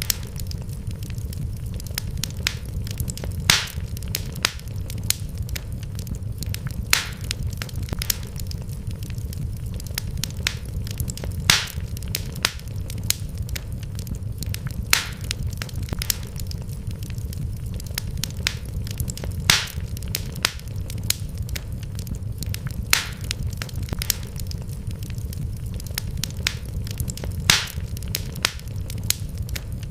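Wood fire crackling, with frequent small snaps and a louder pop every three to four seconds over a steady low rumble.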